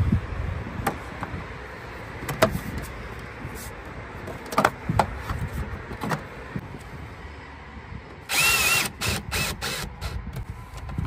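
Plastic terminal cover of a split air conditioner's outdoor unit clicking and knocking as it is fitted back on. About eight seconds in, an electric screwdriver whirs for about a second, then in several short pulses, driving the cover's screw home.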